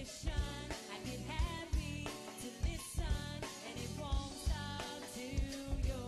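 Go-go music with a singing voice over drums and a steady beat.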